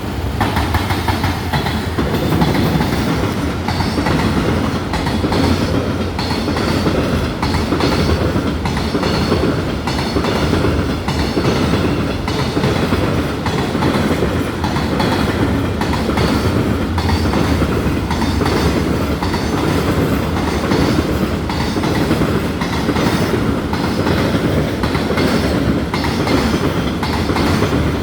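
Freight train hauled by a JR Freight EF210 electric locomotive passing close by, with a steady, continuous clickety-clack of wagon wheels running over rail joints.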